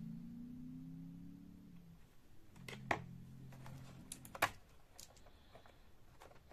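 A low hum for the first two seconds, then scattered sharp clicks and taps, loudest about three and four and a half seconds in, from multimeter test probes being handled and set on test points of a TV's circuit board.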